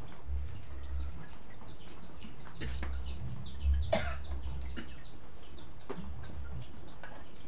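Chickens peeping in a quick run of short, high, falling notes. About four seconds in, a large metal wok clanks once as it is set down on the floor.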